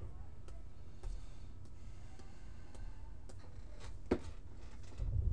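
Low room hum with scattered faint clicks, and one sharper click about four seconds in.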